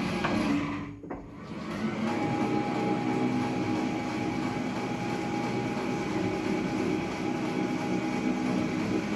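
Powell metal planer running with a steady mechanical clatter. The sound drops away briefly about a second in, and a steady whine joins it at about two seconds.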